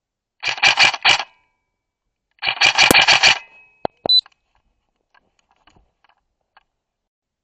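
Two short bursts of rapid airsoft rifle fire, about two seconds apart, followed by a couple of sharp clicks and then a few faint ticks.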